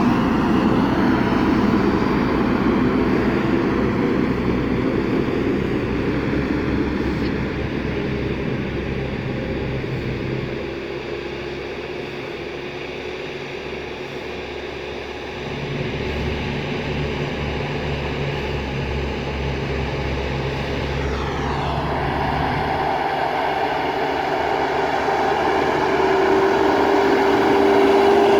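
JCB backhoe loader's diesel engine running, its revs and loudness rising and falling. It quietens for a few seconds in the middle, shifts pitch after two-thirds of the way, and is loudest near the end.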